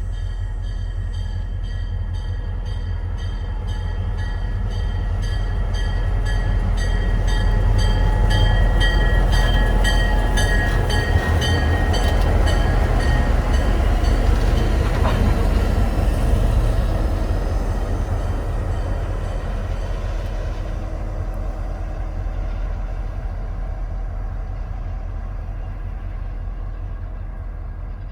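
A train passing by: a low rumble that grows louder to a peak in the middle and then fades away. A fast, regular high-pitched pulsing and a steady high tone sound during the first half.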